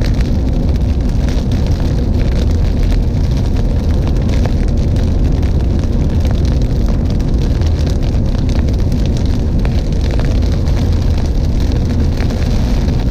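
Steady road and engine noise heard inside a car cruising on a highway, a constant low rumble without change.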